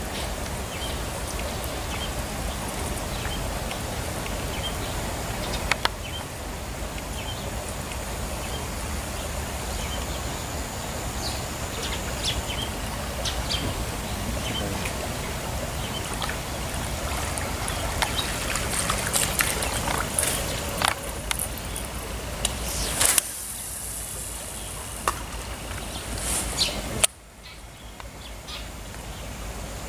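Running water trickling steadily, with scattered clicks and knocks. A faint high steady whine lasts a few seconds. Near the end a sharp knock comes, and the sound then drops much quieter.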